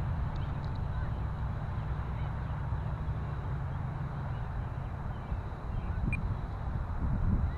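Wind rumbling on the microphone, with the faint steady high whine of the Carbon-Z Cessna 150's electric motor flying overhead.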